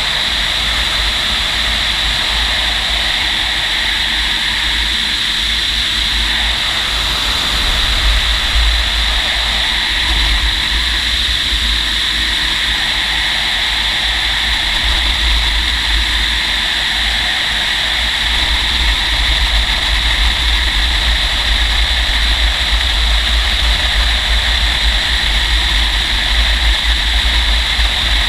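Steady in-flight noise in a glider cockpit on aerotow: a rush of airflow with a hissing whine, over a deep rumble of wind buffeting the microphone. It grows slightly louder in the second half.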